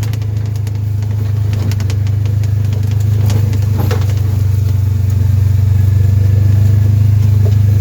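Vehicle engine running steadily with a low, even hum, with a scatter of short rattles and knocks over roughly the first half.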